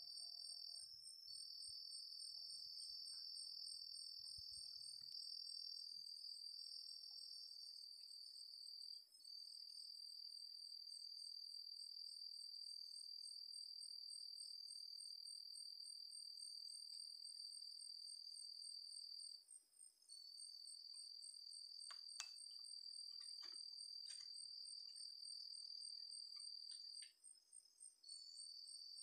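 Night insect chorus: steady high-pitched trilling from insects, with two trills at different pitches, the lower one pausing briefly a few times. A few faint clicks come near the end.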